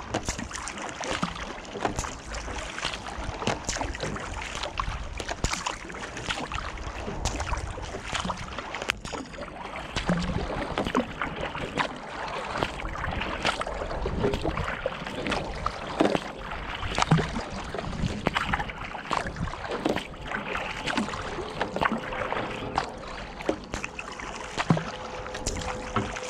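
Water washing along a kayak's hull as it moves through calm river water, with frequent short splashes and drips from paddle strokes.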